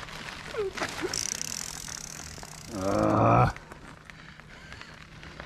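Mountain bike rolling slowly over a gravel path, its tyres crunching faintly. About three seconds in, a rider lets out a short, loud drawn-out vocal sound, like an 'ooh', lasting under a second.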